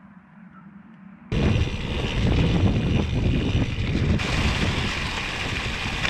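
Wind rushing over an action camera's microphone while a mountain bike rides, its tyres rolling over a leaf-covered trail. It starts abruptly a little over a second in, after a quieter stretch with a low steady hum.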